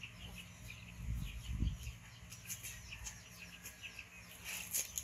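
Birds chirping in the background, many short high calls. A brief low rumble comes about a second in.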